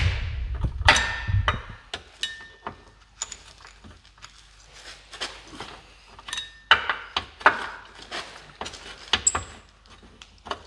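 Hand tools clinking and knocking on metal under a car: a long breaker bar and socket being fitted onto and turned on nuts, in irregular sharp clanks, some ringing briefly. A low rumble runs through the first second or so.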